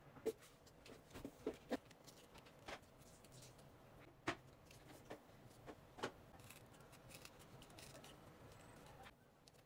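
Faint handling sounds of fingers working small pieces of cotton fabric: scattered soft clicks and light rustles, a dozen or so short taps spread unevenly.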